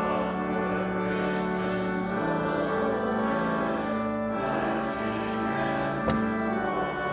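Church organ playing a hymn in slow, sustained chords, with a single sharp knock about six seconds in.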